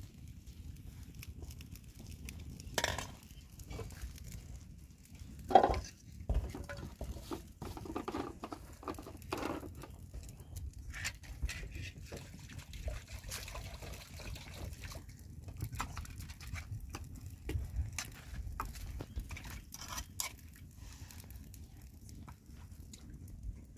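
Metal spoon clinking and scraping against a metal pot while raw meat is washed in water, with water sloshing. Irregular light clinks throughout, with a louder knock about five seconds in.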